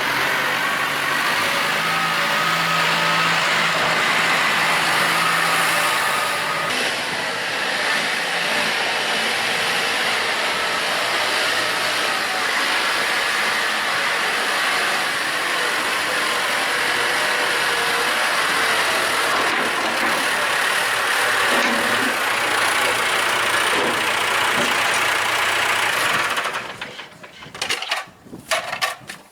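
Tractor engine running steadily at a constant pace. Near the end it drops away abruptly, leaving a few sharp knocks.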